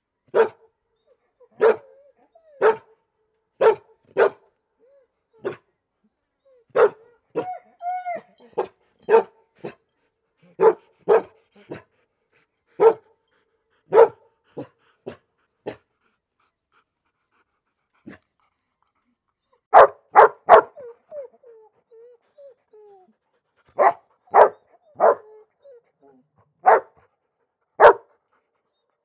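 A dog barking in short, sharp barks, mostly about a second apart, with a brief whine about eight seconds in. The barks stop for a few seconds past the middle, then resume with a quick cluster and a few more spaced barks.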